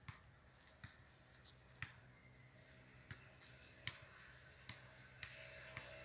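Near silence with a low steady hum, broken by faint sharp clicks about once a second.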